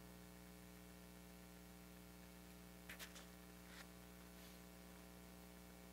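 Near silence: a steady low electrical hum, with a few faint, brief rustles about three seconds in.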